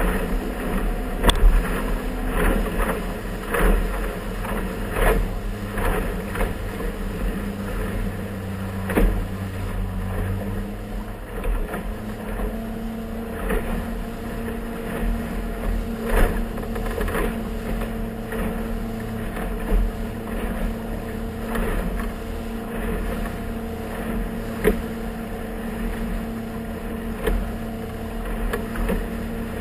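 Motorboat engine running steadily under way, the hull slapping and splashing irregularly through choppy water. The engine note shifts up slightly about eleven seconds in.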